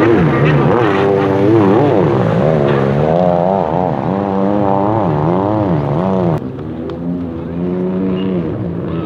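Racing jet ski engines revving, the pitch swinging rapidly up and down over and over. About six seconds in the sound drops abruptly to a quieter, steadier engine drone.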